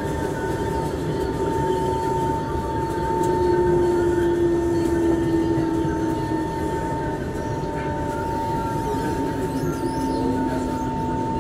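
Singapore MRT train running, heard inside the passenger car: a steady rumble with a constant high whine and a lower whine that slowly falls in pitch.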